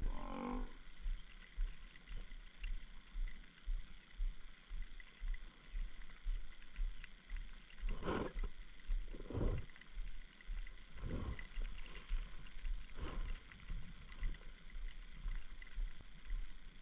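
A wounded Cape buffalo bull lying down, giving four low drawn-out bellows a second or two apart: the death bellows of a mortally wounded buffalo.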